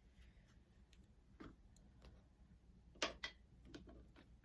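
Near silence with a few faint clicks and taps, the sharpest pair about three seconds in: tarot cards being handled.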